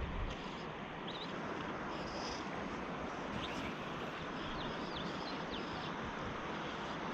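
Steady outdoor rushing ambience by a river, with a few faint, short bird chirps scattered through it.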